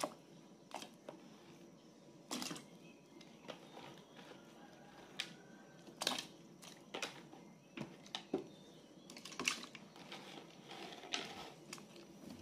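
Pieces of oxtail dropped one at a time into a pot of water: about a dozen irregular plops, splashes and knocks of bone against the pot.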